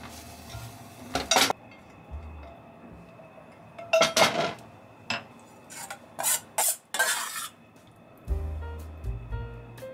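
Cooking utensils scraping and clinking in a few short bursts: a spatula against a ceramic-coated frying pan and plate as scrambled egg is slid onto rice, then a metal ladle knocking in a pot of sauce. Soft background music plays underneath.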